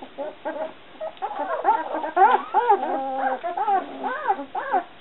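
Newborn White Swiss Shepherd puppies whimpering and squealing: many short, high cries that rise and fall in pitch, several at once, louder from about a second in.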